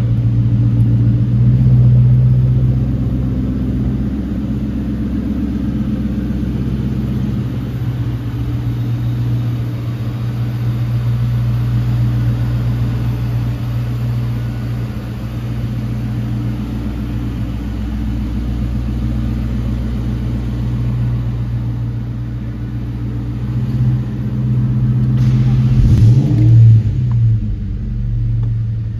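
1996 Ford Mustang SVT Cobra's 4.6-litre DOHC V8 idling steadily through a Magnaflow cat-back exhaust. Near the end it is revved once, the pitch rising and falling, before it settles back to idle.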